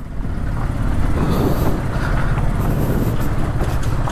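A vehicle engine running steadily as a low drone, with an even rushing noise over it.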